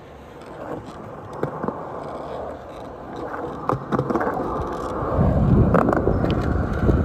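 Skateboard wheels rolling on concrete, with a few sharp clicks and knocks. The rolling grows louder and heavier over the last two seconds.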